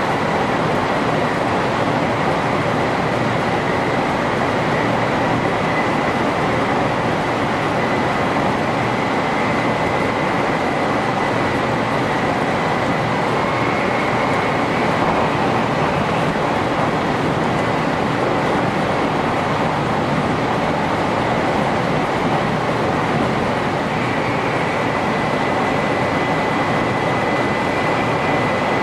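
500 series Shinkansen running at speed, heard from inside the driver's cab: a steady rushing running noise with a faint steady high tone over it.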